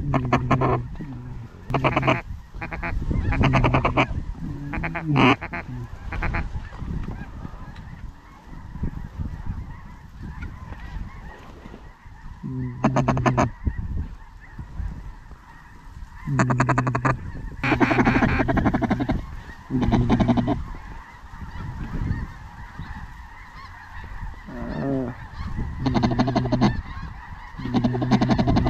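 Waterfowl calling: loud bunches of short, low-pitched calls every few seconds, over a steady, fainter chatter from a large flock.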